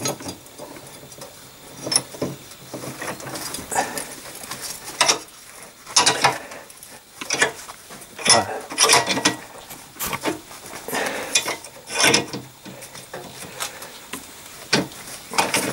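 Bench vice being screwed shut by its sliding handle to press a silentbloc rubber bush into a suspension arm's eye, with a series of irregular clicks and creaks from the vice screw and handle under heavy load. The bush is going in stiffly.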